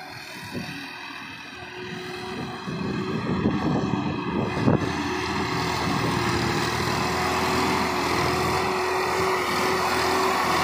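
Swaraj 969 tractor's diesel engine running steadily under load at about 1300 rpm in first gear while it pulls a laser land leveller. It grows louder over the first few seconds as the tractor comes up close, then holds steady.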